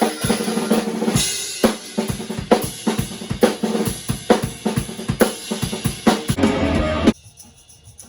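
Drum kit playing a steady rock beat, with kick, snare and cymbals struck about twice a second. It cuts off abruptly about seven seconds in.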